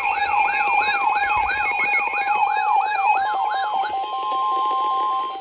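Several electronic emergency alert tones sounding over one another. A rising siren sweep repeats about three or four times a second over steady and stepping alarm tones. About four seconds in the sweeps stop, and a single steady tone near 1 kHz takes over.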